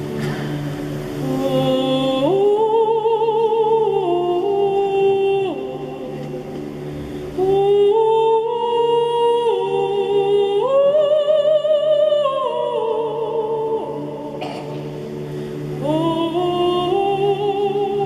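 Solo soprano singing with a wide vibrato, in three long phrases separated by short breaths, over a soft sustained accompaniment.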